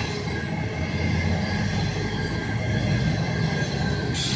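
Locomotive-hauled passenger coaches rolling past at close range: a steady rumble of wheels on rail. A brighter high hiss comes in sharply just before the end.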